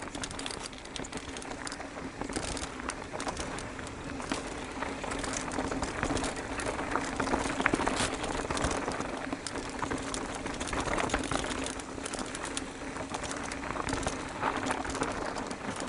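Mountain bike descending a rough, rutted dirt trail: tyres crunching over dirt and rocks, with frequent short knocks and rattles from the bike over bumps and a steady low hum underneath.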